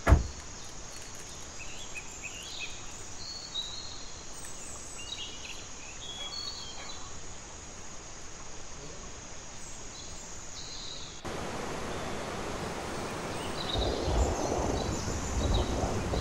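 An SUV's side door slams shut with a single thump, then birds chirp now and then over a steady outdoor hiss. About eleven seconds in, the sound changes to wind gusting across the microphone.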